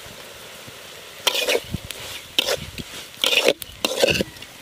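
Small shrimp frying with a steady sizzle in a metal kadai, then a flat spatula stirring and scraping through them in four strokes, starting about a second in.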